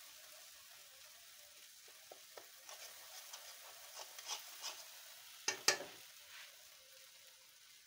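Red paste sizzling and bubbling in hot oil in a wok, with light scraping clicks from stirring. About five and a half seconds in, two loud knocks come in quick succession.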